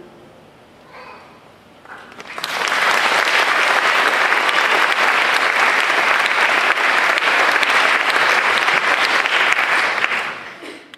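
Audience applauding, breaking out about two seconds in and dying away near the end.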